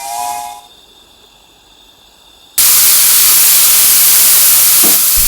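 The multi-tone steam whistle of a 5-inch gauge live steam locomotive dies away about half a second in. A loud, steady hiss of escaping steam then starts suddenly about two and a half seconds in.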